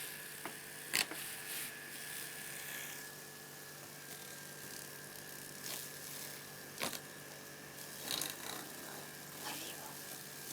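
Small electric fan running with a steady hum and a thin high whine, with a few light clicks and taps scattered through, the loudest about a second in and near seven seconds in.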